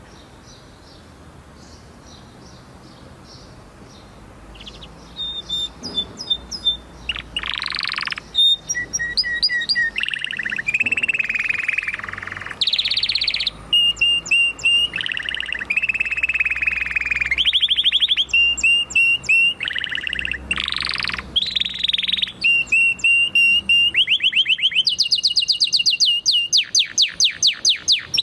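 Domestic canary singing. Faint chirps for the first few seconds, then loud song made of rapid trills and rolled phrases, each held a second or two, with a long fast run of repeated notes near the end.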